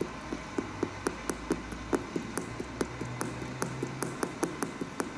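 Fingertips tapping the carbon-fibre shank plate on the sole of an Air Jordan 12 sneaker: a steady run of sharp, hard clicks, about four to five a second. The tapping is meant to show that the plate is real carbon fibre.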